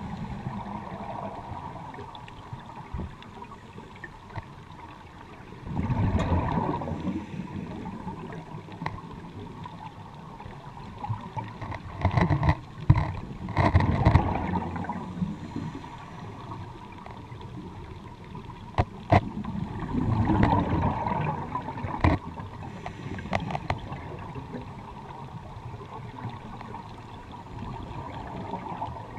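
Underwater sound from a scuba diver's camera: steady watery hiss with exhaled regulator bubbles gurgling up in surges about every six to seven seconds, plus a few sharp clicks.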